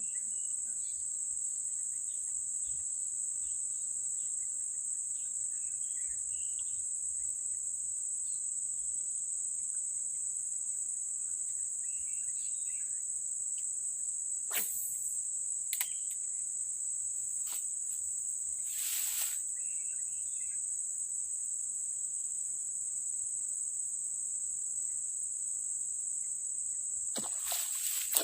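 Insect chorus: a steady, high-pitched drone with faint chirps over it. A few short swishes and clicks come in the second half, and louder rustling starts near the end.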